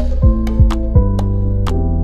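Background music: sustained low synth and bass notes over a beat of deep thuds and sharp clicks.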